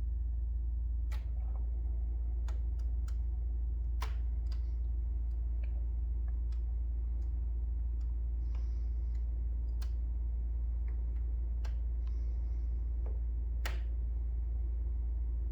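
Pioneer 9000 BTU mini split running, making sharp irregular clicks about once a second over a steady low hum. The owner takes the clicking for a fault in the brand-new unit.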